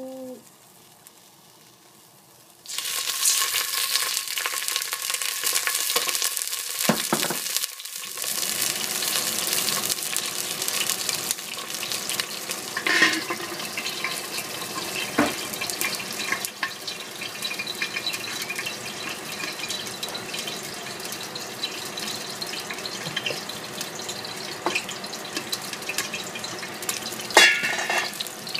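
Scallions and garlic sizzling in hot oil in a stainless steel pot. The sizzle starts suddenly about three seconds in and then runs steadily, dipping briefly a few seconds later, with scattered sharp ticks and a louder clink near the end.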